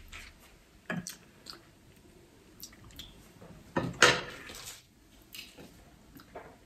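Kitchen utensils handled against bowls and a cake plate: a few light clicks and knocks, and one louder clatter about four seconds in.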